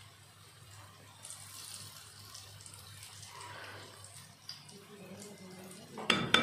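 Hot oil sizzling steadily as spoonfuls of lentil batter deep-fry in a pan. Near the end, a sudden loud clatter of a utensil against the pan.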